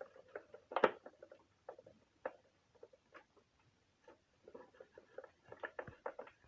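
Screws being driven into an LG vacuum cleaner's plastic housing by hand, and the housing parts being handled: a run of small, irregular clicks and ticks, with one louder knock about a second in.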